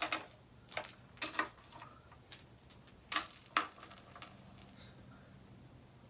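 Hard plastic square-bill crankbaits and their metal treble hooks clicking and clinking as they are handled and set down. A few separate sharp clicks, with two of the louder ones around three seconds in.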